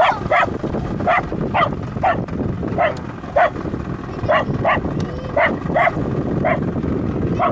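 Dog barking repeatedly, about a dozen sharp barks at roughly two a second with brief pauses, over steady wind and water noise.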